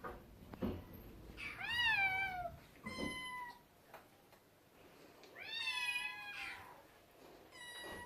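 Domestic cats meowing for attention: four drawn-out meows, the longest about a second long near the middle.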